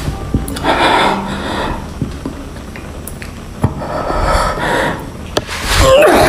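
Heavy breathing close to the microphone: three rough breaths a couple of seconds apart, with a few faint clicks between them.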